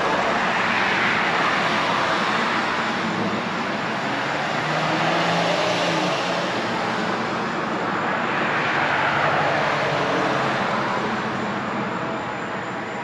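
Road traffic: cars passing on the road, their tyre and engine noise swelling and fading in turn, loudest about a second in and again around nine seconds, with a low engine hum in between.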